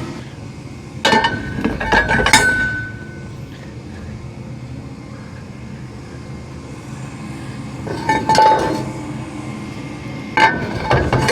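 Metal clanking and ringing from a log trailer's steel deck as debris is knocked off it, in three bunches of knocks: about a second in, around eight seconds, and near the end. A low steady rumble runs underneath.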